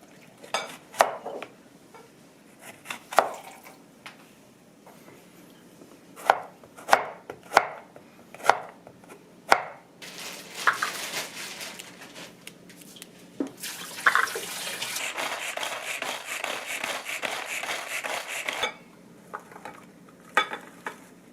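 Knife chopping on a cutting board in single, spaced strokes, about ten in all. About ten seconds in, a steady hiss takes over for roughly eight seconds, then stops.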